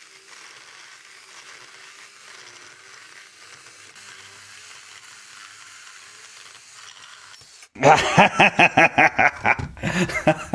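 Bosch EasyCut 12 NanoBlade cordless mini chainsaw cutting through an aluminium extrusion: a steady hiss with a faint motor tone underneath. It stops about eight seconds in, when a man's loud voice takes over in quick, rhythmic pulses.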